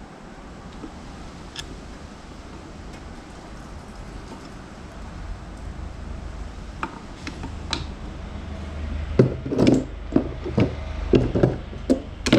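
Hand tools and loose parts knocking and clattering against a manual transmission during disassembly. A few faint clicks come first, then a run of irregular, louder knocks in the last few seconds.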